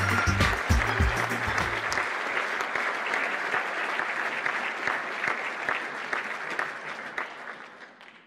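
Applause, a dense patter of clapping, with the tail end of background music that stops about two seconds in; the clapping then goes on alone and fades out near the end.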